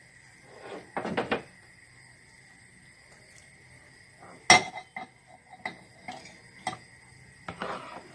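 A spoon clinking and scraping against a bowl as the jelly and milk mixture is stirred: scattered knocks, with one sharp, loud clink about four and a half seconds in.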